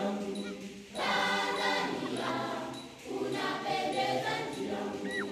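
A choir singing, used as background music, in held notes and phrases, with short breaks about a second in and again around three seconds in.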